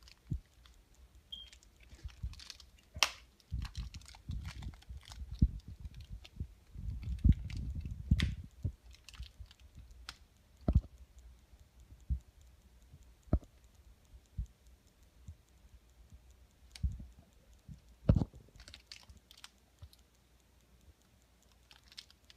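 Toy blind-bag packaging being handled and opened by hand: scattered sharp clicks and crinkles with soft low thumps, busiest in the first half.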